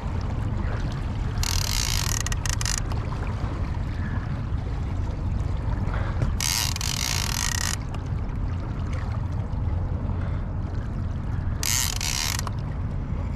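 Fishing reel ratcheting in three short bursts of a second or so each while a hooked sturgeon is played on a bent rod. A steady low rumble runs underneath.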